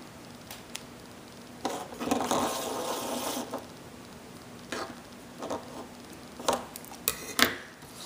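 Hands handling scissors and upholstery thread at a wooden desk: a rustle lasting about two seconds, a few scattered light clicks and taps, and a quick run of clicks near the end, over a faint steady hum.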